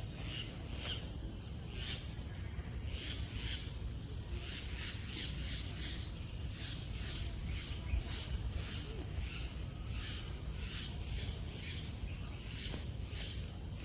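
Insects keeping up a steady high-pitched drone while birds chirp over it again and again, with a low rumble underneath.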